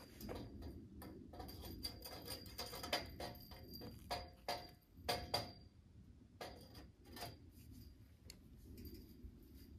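Metal tent-frame poles clinking and knocking as they are handled and fitted into the frame joints: a quick run of light metallic clicks with a little ringing, thinning out after about six seconds.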